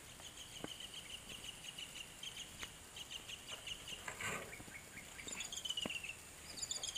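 A bird calling in rapid pulsed trills: a long, fairly level run through the first half, then two quicker trills that drop in pitch near the end. A few faint clicks and a brief rustle sound beneath it.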